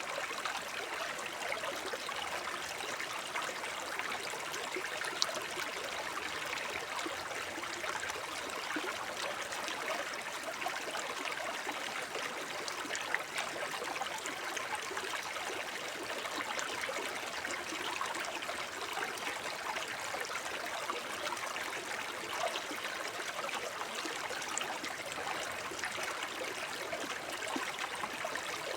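Small forest stream babbling over stones: a steady rush of water with close, fine splashing and trickling, and a couple of brief sharp drips or splashes.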